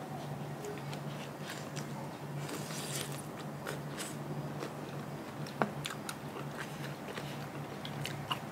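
A person chewing and crunching food, with scattered wet clicks and one sharp click a little past halfway. A steady low hum runs underneath.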